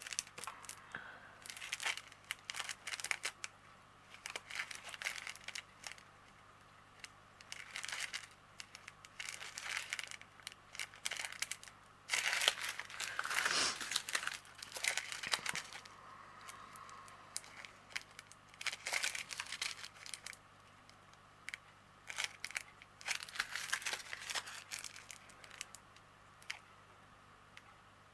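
Small plastic bags of diamond painting drills crinkling and rustling as they are handled, in irregular bursts, loudest about halfway through.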